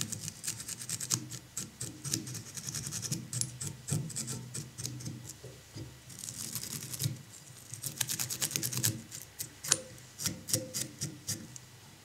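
A small dubbing brush scratching through the dubbed body of a fly in quick, repeated strokes that come in several short bouts, teasing the dubbing fibres out.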